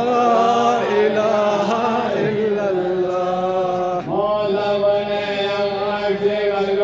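A man's voice chanting a Balti qasida, a devotional poem, in long drawn-out melismatic notes. A new phrase begins about four seconds in and is held on one note to the end.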